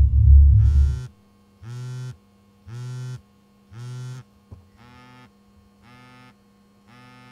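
A cell phone buzzing on vibrate with an incoming call: short buzzes about once a second, the first three louder than the rest. A deep rumble fades out about a second in.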